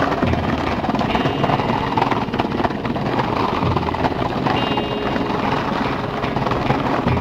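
Skateboard wheels rolling over brick pavement: a steady, rough clatter from the joints in the bricks.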